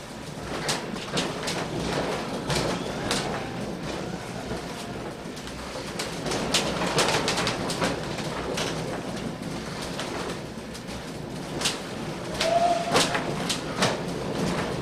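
Heritage train carriage rolling slowly along the track: a steady low rumble with irregular clicks and rattles from the wheels and carriage, and a brief tone near the end.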